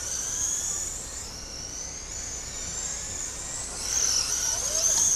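High-pitched whine of 1/10-scale electric RC dirt oval race cars (Mudboss class) lapping the track, the motor pitch gliding up and down as they throttle through the corners. It swells about four seconds in as a car passes close.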